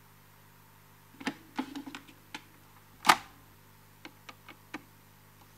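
Metal tool clicking and knocking against the screws and metal front panel of a vintage Sony reel-to-reel tape recorder: a quick cluster of clicks, one sharper knock about three seconds in, then four light ticks.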